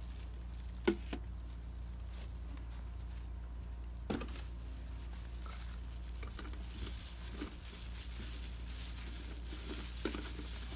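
Handling of a plastic jar and a disposable plastic glove: faint crinkling, with a sharp knock about a second in and another around four seconds, then a few light clicks as the jar is tipped over and tilted. A steady low hum runs underneath.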